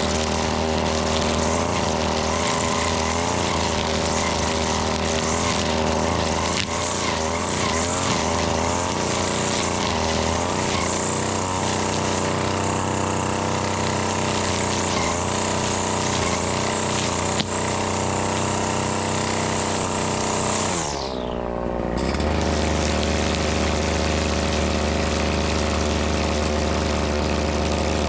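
Husqvarna 525L two-stroke string trimmer running steadily at working speed. A little over twenty seconds in, the throttle is let off and the engine winds down, then settles into a steady idle.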